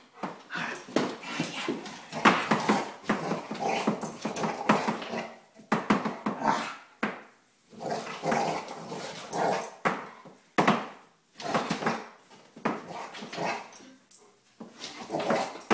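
Bernese Mountain Dog growling and barking in play as it attacks a broom, in a string of short bouts with brief pauses between them.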